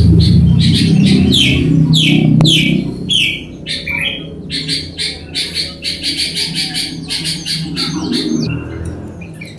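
Sooty-headed bulbuls (kutilang) calling: a run of quick falling whistled notes in the first few seconds, then rapid repeated high chirps. A low rumble runs under the first three seconds and comes back briefly near the end.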